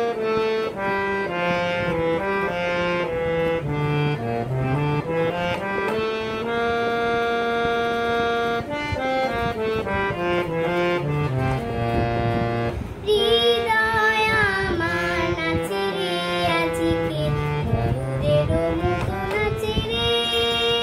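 Harmonium playing a melody of held reed notes, stepping up and down, with a lower line moving beneath it. About two-thirds of the way through, a girl's singing voice joins over the harmonium.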